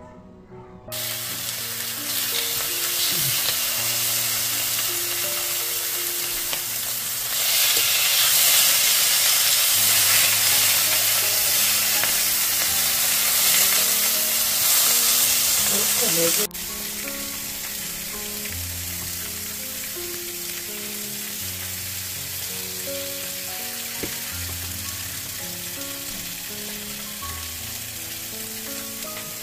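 Strips of pork belly sizzling as they fry in a frying pan. The sizzle starts about a second in, gets louder around the seven-second mark, then drops suddenly at an edit just past halfway and carries on more quietly.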